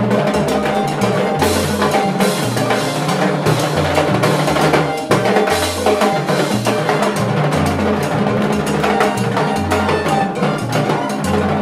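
Two timbales players soloing together, rapid stick strokes on steel-shelled timbales and cymbals over a salsa band's bass line.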